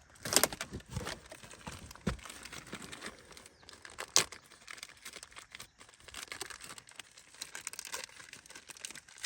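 Plastic packaging crinkling and tearing as a new ATV oil filter is unwrapped, with a few sharper knocks mixed in.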